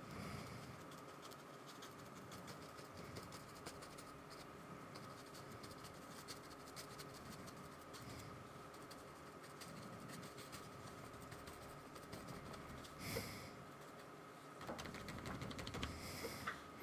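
Faint scratching and tapping of a paintbrush dabbing acrylic paint onto a paper sketchbook page, with a slightly louder scrape about thirteen seconds in.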